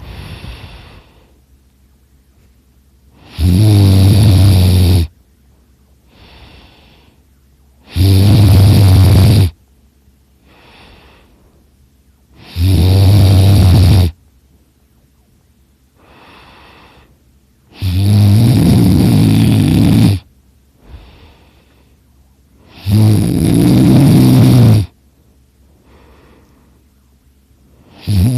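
A sleeping person snoring very loudly. The loud snores come about every five seconds and last a second or two each, with a fainter breath between them.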